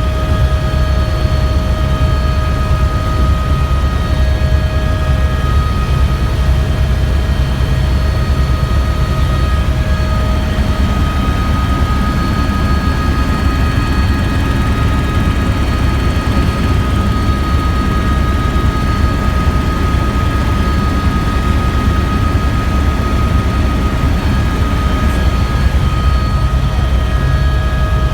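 Tour helicopter in flight, heard from aboard: a loud, steady low rotor rumble with several steady whining tones from the engine and transmission above it.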